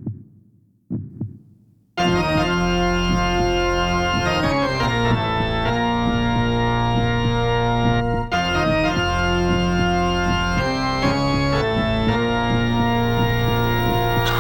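Two pairs of low thumps, then a few seconds in, held organ chords come in and sustain, changing chord several times as a live band's song intro.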